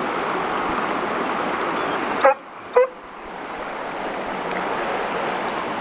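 Mountain stream rushing steadily. A little over two seconds in come two short, loud calls about half a second apart. After them the rushing returns more quietly and slowly swells again.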